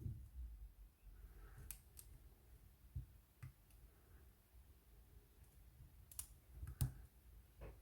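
Lock pick working the wafers of a cabinet wafer lock under clockwise tension: a handful of faint, scattered metal clicks, the sharpest a little before the end.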